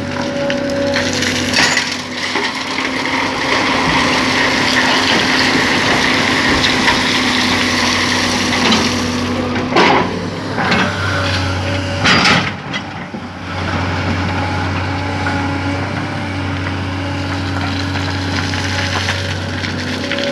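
Excavator's diesel engine running steadily while the bucket digs through sand, with two loud knocks a little past halfway.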